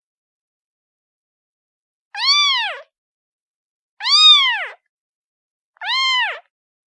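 Cat meowing three times, about two seconds apart, each meow rising and then falling in pitch.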